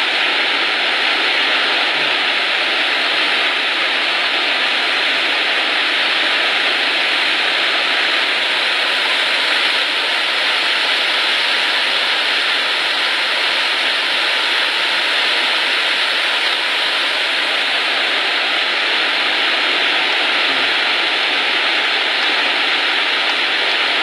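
Waterfall: a loud, steady rush of falling water that does not change.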